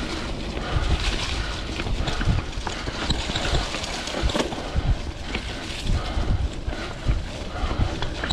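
Vintage Klein Attitude Comp mountain bike ridden over dirt single-track: steady tyre and trail noise with frequent irregular knocks, clicks and rattles from the bike over bumps.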